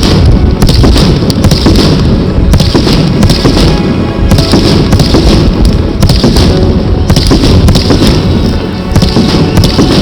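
Fireworks going off in a dense, unbroken barrage, several loud bangs a second overlapping one another.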